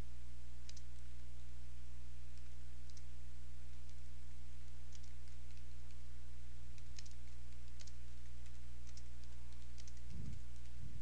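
Computer keyboard keys clicking in irregular runs as text is typed, over a steady low electrical hum, with two soft low thumps near the end.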